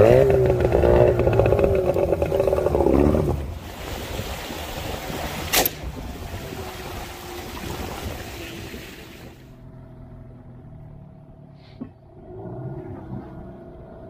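Small outboard motor driving a wooden boat: it revs up sharply at the start and runs hard for about three seconds, then settles to a lower, quieter steady running. A single sharp knock about five and a half seconds in.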